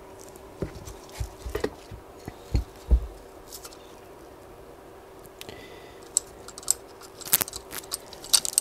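Scattered knocks and clicks of a carburettor and tools being handled on a workbench during its strip-down. A few dull thumps come in the first three seconds, then sharper metallic clicks near the end.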